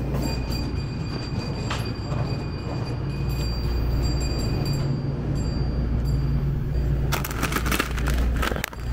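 Steady low hum of a convenience store's refrigerated display cases, with a faint high whine. About seven seconds in, plastic snack packaging starts to rustle and crackle as it is handled.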